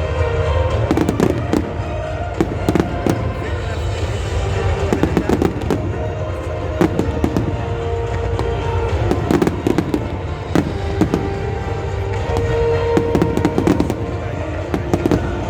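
Fireworks bursting and crackling in quick, irregular succession over a steady low rumble.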